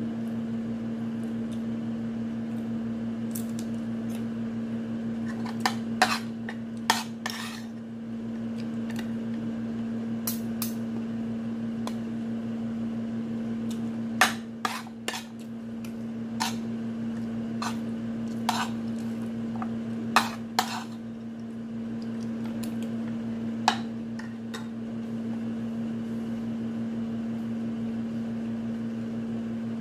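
Metal fork clinking and scraping against a plate while eating, in scattered sharp clicks, some in quick clusters, over a steady low hum.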